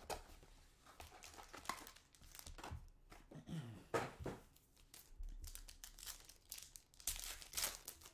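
Foil trading-card pack wrappers crinkling and tearing as they are handled and ripped open by hand, in irregular crackles.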